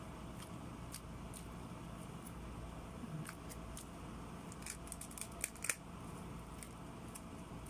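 Faint scattered clicks and crinkles of plastic and foil takeaway packaging being handled, with a quick cluster of crisp crackles about five seconds in, over a low steady room hum.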